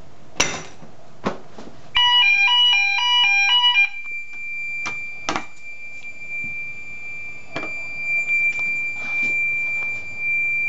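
A click as the test key goes into the manual call point, then the fire alarm sounders go off: about two seconds of a two-tone alternating warble, low and high tones swapping about four times a second, then a single steady high-pitched tone. This is the call point test working, the system raising a fire alarm.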